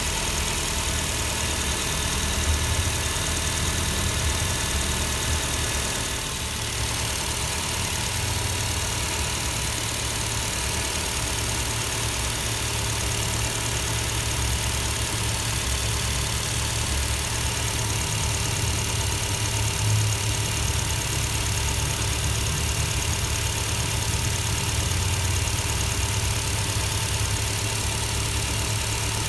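Nissan Almera idling with its air-con condenser and radiator fan motor running, a steady low hum under an even whirring hiss. The noise is that of a spoiled condenser fan motor.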